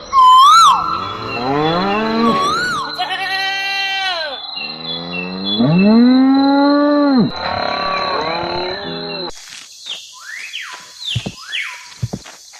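Cattle mooing: a series of about five long calls one after another. About nine seconds in, the calls stop, and a steady hiss with scattered short knocks takes over.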